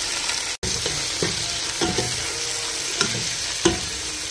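Chopped tomatoes and onions sizzling in hot oil in a non-stick pan, stirred with a spatula whose strokes scrape against the pan every second or so.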